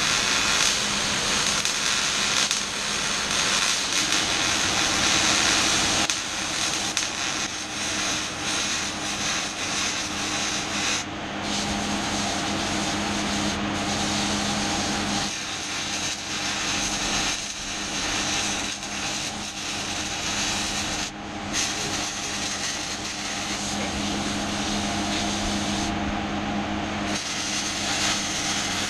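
Arc welding on a steel mower deck: a steady crackling hiss that breaks off briefly a few times between welds, over a steady low hum.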